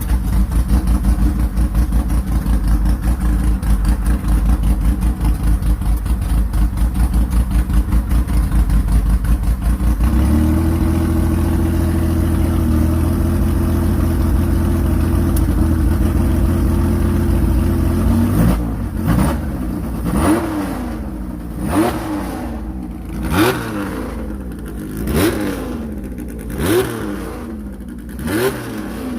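Porsche 911 SC's air-cooled flat-six running loud with a lumpy, pulsing low-rev beat, then held steady at raised revs for about eight seconds. From about two-thirds of the way in, the throttle is blipped over and over, each rev rising sharply and dropping away, roughly one every second and a half.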